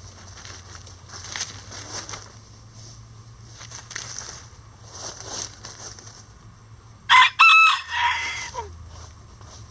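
Bantam chickens softly rustling and scratching in dry leaves and sand. About seven seconds in, a bantam rooster crows loudly once: a short crow with a brief break, ending in a falling note.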